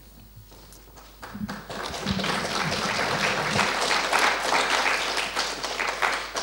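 Audience applauding in a large hall. The clapping starts about a second in, builds quickly, holds steady, and dies away near the end.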